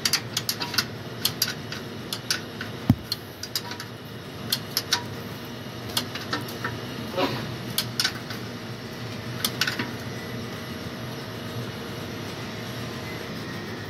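Sharp metallic clicks and taps of a ring spanner on a steel oil sump drain plug as the plug is tightened, coming in irregular clusters for about the first ten seconds and then stopping.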